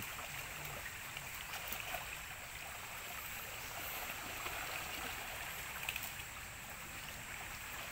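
Shallow creek water flowing and rippling around waders, a steady rushing with no marked changes.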